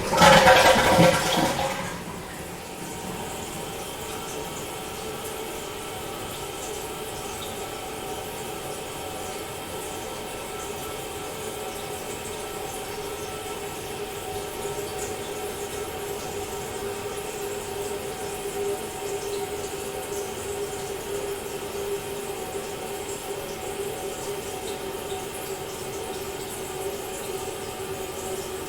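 Toilet flushing: a loud rush of water for about two seconds, then the cistern refilling with a steady, quieter running of water and a faint steady tone.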